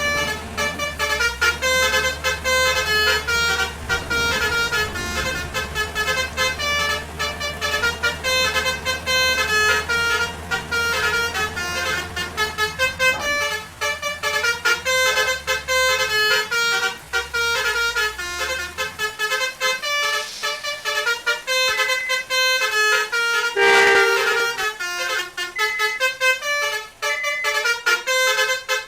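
Multi-tone 'telolet basuri' vehicle horn playing a quick melody of short stepped notes, over a low engine rumble that stops about 19 seconds in.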